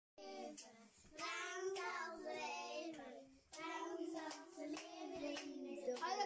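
Young children singing together, with hand claps through the song.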